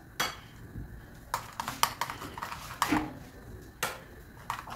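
A spoon stirring a thick yogurt and red chilli marinade in a glass bowl, clinking and knocking against the glass in irregular clicks.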